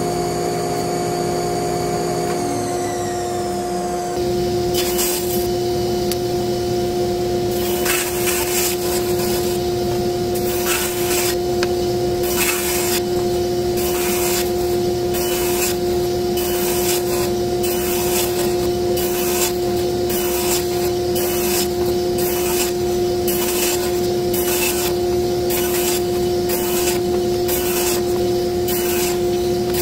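A table saw runs with a steady hum while wood is fed through it in quick repeated cuts, about one a second. Each cut is a short burst of sawing noise. Before the cuts start, a machine's pitch falls as it winds down.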